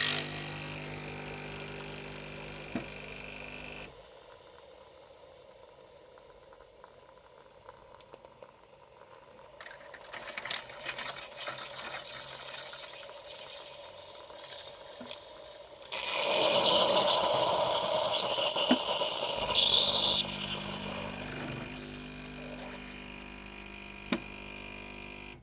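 Bosch Tassimo pod machine brewing a hot chocolate disc: its water pump buzzes steadily, drops away about four seconds in, and a loud hissing burst comes about sixteen seconds in and lasts some four seconds, followed by a steady hum again.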